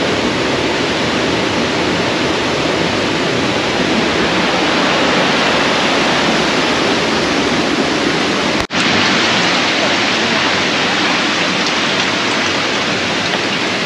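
Jungle stream rushing over rocks and a small cascade, a steady loud rush of water. It breaks off for an instant about nine seconds in.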